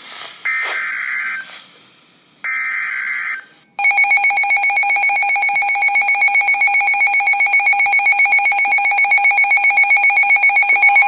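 Emergency Alert System tones: two short bursts of warbling digital header data, each about a second long, then about 4 s in a loud, harsh, continuous electronic alert tone that starts abruptly, the attention signal that comes before a weather warning.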